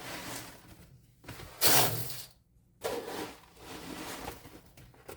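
Scoops of dry chicken grower feed pouring into a metal feed bin, three rushing pours in a row, the second the loudest.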